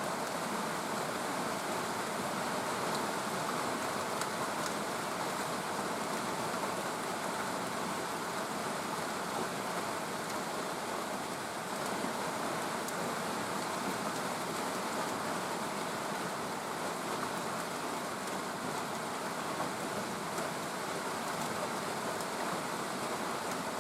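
Steady rain falling, an even hiss of many drops with faint scattered drip ticks.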